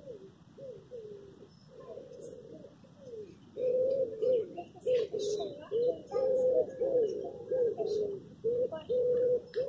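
A pigeon cooing in a run of short, low notes, some held flat and some sliding down. It is faint at first and louder from about three seconds in. Faint high chirps of small birds sound through it.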